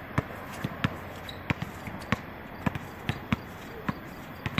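A basketball being dribbled on an outdoor hard court: a run of sharp bounces at an uneven pace, about one every half second.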